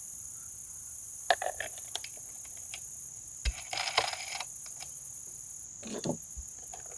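Scattered light clicks and knocks from chainsaw parts being handled and fitted by hand, with a brief metallic jingle about four seconds in. Insects chirp steadily in the background.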